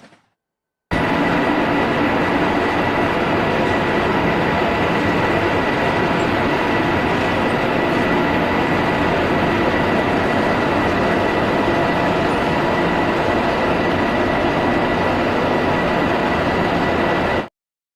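Moving train running: a steady, loud rumble and rattle with a faint high whine, starting abruptly about a second in and cutting off suddenly near the end.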